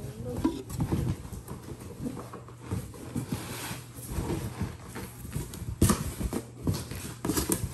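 Cookware being handled: a glass pot lid with a wooden knob is lifted and moved about over a nonstick pot. The lid and pot give scattered light knocks and clicks, with some rustling, and one sharper click a little past the middle.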